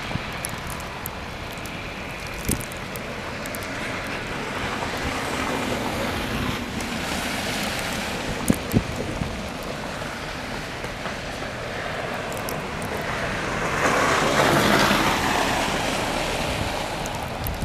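Road traffic on a snow- and slush-covered street, tyres swishing through slush as vehicles pass, the loudest passing about fourteen seconds in, with wind on the microphone. Two short knocks come about eight and a half seconds in.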